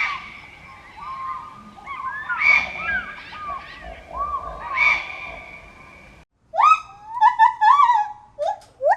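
Animal calls: a run of chirps and short whistles over a steady high tone. After a cut about six seconds in, a quick series of high cries follows, each rising and then falling.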